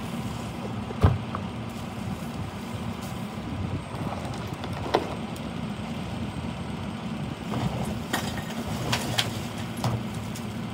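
Rear-loading garbage truck's diesel engine idling steadily, with a sharp knock about a second in and another near the middle. Near the end, a few thumps and clatters as a plastic trash can is tipped into the hopper.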